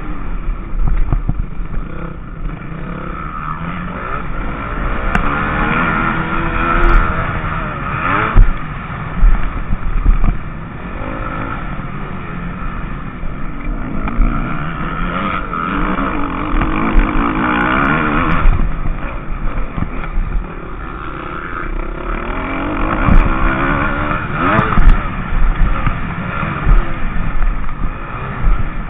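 Motocross bike engine at close range, its revs climbing and dropping again several times as the rider accelerates and backs off. A few sharp knocks come from the bike over the rough track, with a low wind rumble on the microphone.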